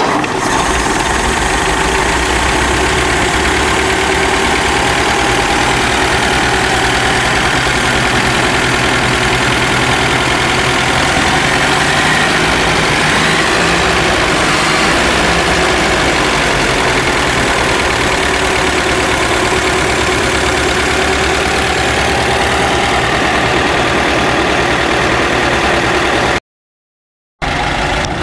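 The 1923 Lincoln Model L's flathead V8 idling steadily with an even beat. The sound cuts out for about a second near the end.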